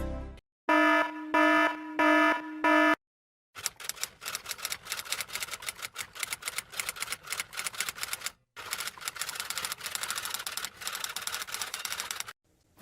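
Four short electronic beeps, then a long stretch of rapid typing clatter of keys, like a typewriter, broken by a short pause about halfway. A sharp whoosh begins right at the end.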